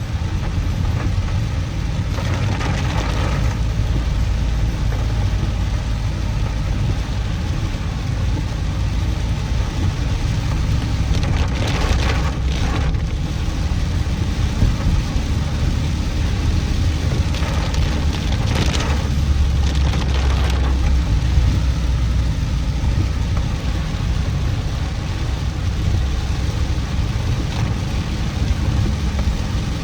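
Road vehicle travelling in the rain: a steady low rumble of engine and road noise under a hiss, with three brief louder swishes, a couple of seconds in, about midway and at about two-thirds of the way through.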